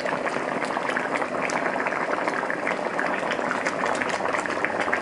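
Coconut-milk red curry bubbling at a boil in a wok: steady bubbling with many small pops.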